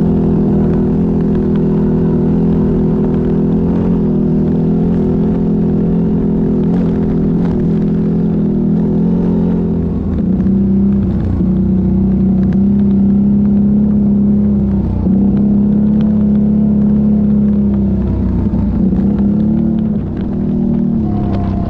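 ATV engine running steadily under way. About halfway through its note changes and then holds, dipping briefly twice as the throttle eases.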